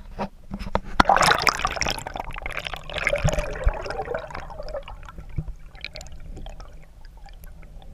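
Water splashing and bubbling around a camera as it is dunked into a river, loudest in the first few seconds, then settling to muffled underwater crackles and clicks over a low rumble.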